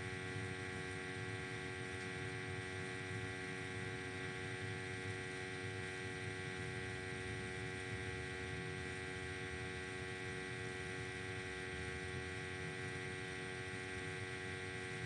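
Steady electrical hum: several constant tones over a faint hiss, with no change.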